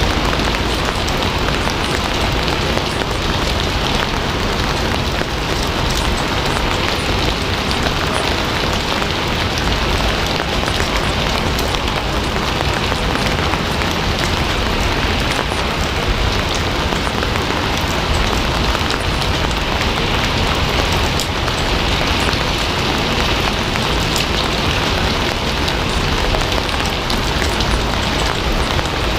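Steady rain falling: a dense, even patter of drops that never lets up.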